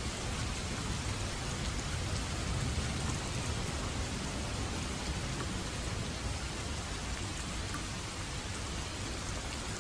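Steady rain falling, with scattered drop ticks and a low rumble of thunder underneath that swells a little about three seconds in.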